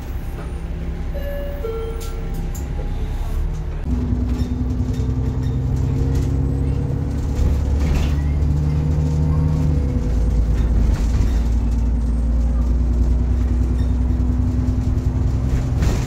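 A bus's diesel engine pulling under load, heard from inside the passenger saloon, with a steady whine over the engine note (the 'hoover' sound). The note steps up about four seconds in and shifts again around eight and ten seconds in as the gearbox changes up.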